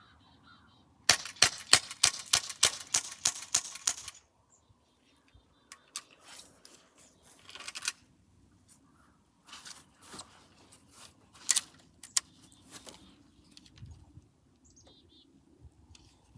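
Glock 19X Gen 5 pistol being worked empty: a fast run of sharp metallic clicks, about four or five a second for some three seconds, then scattered clicks and rattles. Birds chirp faintly in the background.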